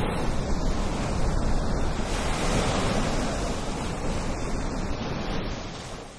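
Ocean surf: a steady rush of breaking waves that fades away near the end.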